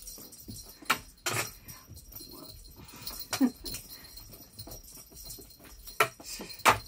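Cats playing with a wand toy, with the scuffling, pouncing and landing of paws on a carpeted floor and about five sharp knocks spread through it. A brief falling cat call comes about three and a half seconds in.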